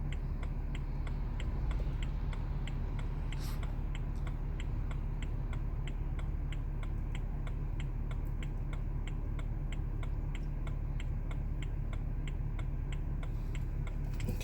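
Hazard-light flasher ticking steadily, about three clicks a second, over the low steady idle of a BMW 335d diesel engine running with its mass airflow sensor unplugged.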